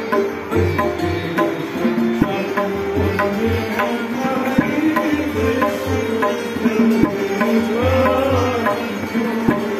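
Kashmiri Sufiana music: tabla playing a steady rhythm with deep bass strokes, a santoor struck rapidly with its hammers, and a melody that rises and falls in smooth glides over them.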